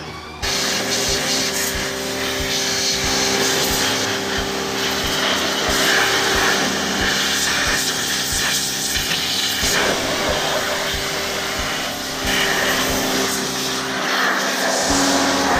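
Kawasaki 302 pressure washer running, its pump motor humming steadily under the hiss of the water jet striking a dirt bike's wheel and bodywork. The spray drops out briefly at the start and resumes sharply about half a second in.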